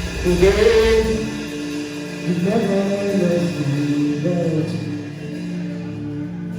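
Worship music: a male voice singing slow, drawn-out lines over sustained keyboard chords, the bass dropping out about a second in.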